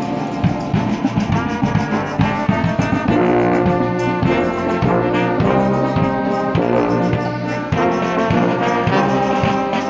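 Brass band of trombones, trumpets and a sousaphone playing a tune together.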